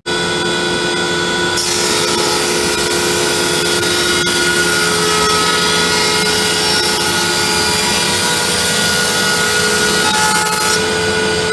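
Felder AD741 jointer/planer with a Byrd Shelix helical cutterhead running as a board is planed. The machine runs steadily throughout. About one and a half seconds in, a loud cutting hiss joins it as the board engages the cutterhead, and it stops near the end as the cut finishes.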